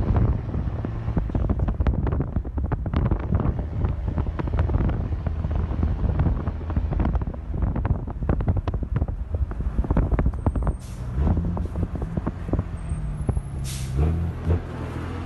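Mercedes-Benz MB 1313 truck with a swapped-in 1518 diesel engine and a straight exhaust, accelerating hard as the driver puts his foot down, heard from a following car. A short sharp hiss comes near the end.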